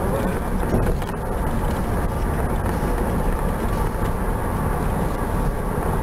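Steady low rumble of engine and tyre road noise inside a moving car.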